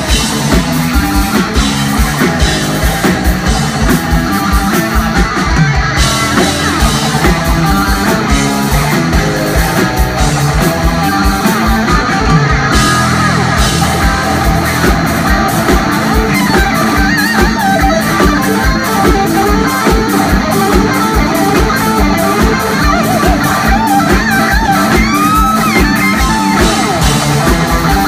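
Live instrumental rock played by a trio of electric guitar, electric bass and drum kit, with the guitar carrying the lead over a driving drum beat. A few bent guitar notes glide in pitch a few seconds before the end.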